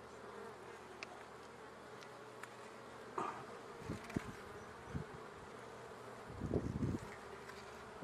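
Honeybee colony buzzing steadily around an open hive being inspected. A few short knocks, the loudest about three seconds in and again near the end, come from the wooden frame and hive tool being handled.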